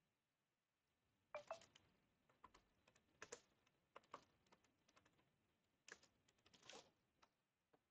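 Faint typing on a computer keyboard: irregular keystrokes in short runs with pauses between.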